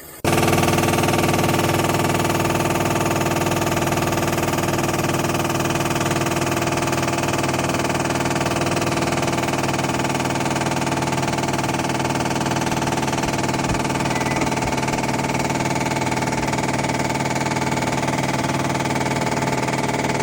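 Kamlam 14000 BTU portable air conditioner running: a loud, steady hum of compressor and fan with several fixed tones over an airy rush, cutting in abruptly just after the start.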